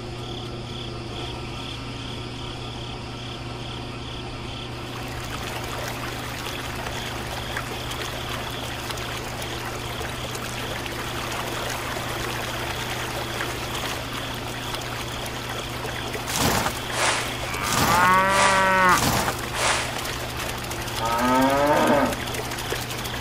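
Two drawn-out animal calls that rise and then fall in pitch near the end, the first longer than the second, over a steady low hum and an even hiss. A few sharp clicks come just before the first call.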